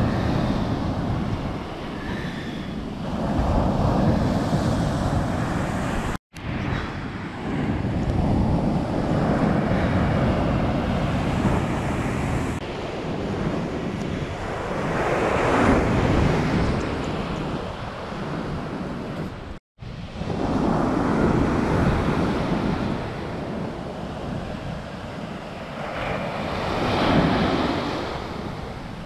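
Atlantic surf breaking on a sandy beach, the roar of the waves swelling and falling away every few seconds, with wind buffeting the microphone. The sound cuts out completely for an instant twice.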